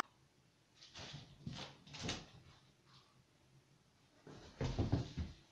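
Faint soft swishes of a cloth blanket being handled and dropped, then a few louder scuffs and light knocks around a door about four and a half seconds in.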